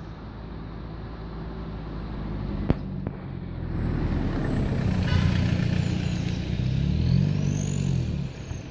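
Four-cylinder turbodiesel engine of a 2017 Ford Transit 2.0L EcoBlue van driving by, growing steadily louder over several seconds. The engine note dips and rises again near the end, then the sound drops off sharply.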